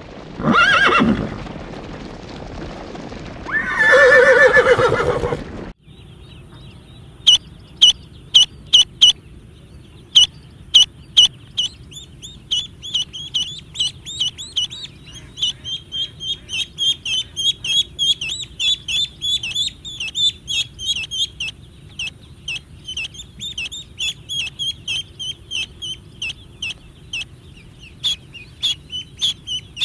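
Two loud animal calls in the first few seconds, then a long run of short, high-pitched chirps, several a second, from small birds such as chicks.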